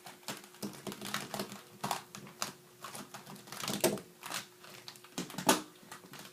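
Plastic 3x3 speedcubes being shuffled around, clacking against each other and the surface in irregular clicks and knocks, with two louder knocks in the second half.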